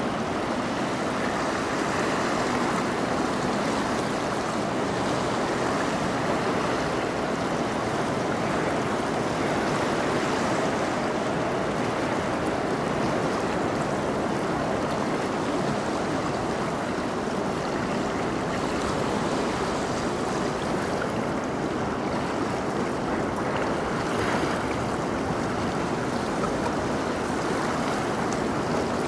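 Steady rush of moving water, an even, unbroken noise with no distinct engine tone.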